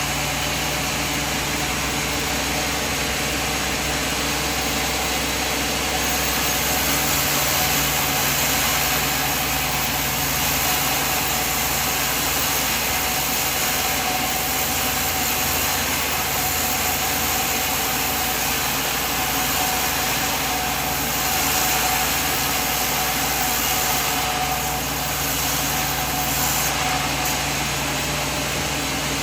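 Sawmill machine running steadily with a continuous mechanical drone and no clear change in load.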